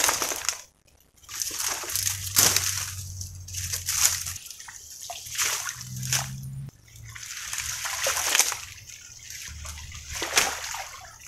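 Shallow ditch water sloshing and splashing in irregular bursts as a person wades and works a wire-mesh fish trap into place. Dry palm fronds swish as they are dragged over the trap.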